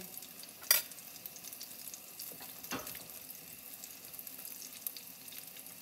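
Apple fritters sizzling steadily as they deep-fry in a pot of hot oil. A sharp knock sounds about a second in, and a fainter one a couple of seconds later.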